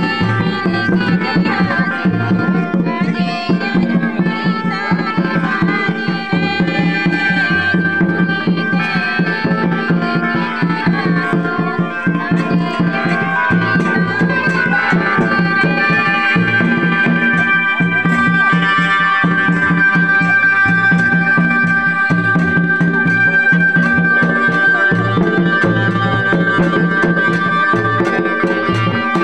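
Santali folk dance music: a hand-beaten laced barrel drum keeps a fast, steady rhythm under a melody from a keyed Indian banjo (bulbul tarang), with sung vocal lines in the first half.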